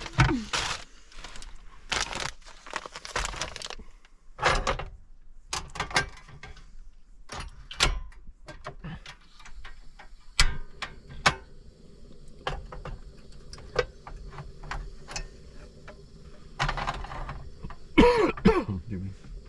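Cooking gear and food being handled: scattered sharp clicks and knocks with short rustles, as a metal sandwich toaster is readied and a tortilla pizza is set into it. A faint steady hum runs beneath from about halfway in.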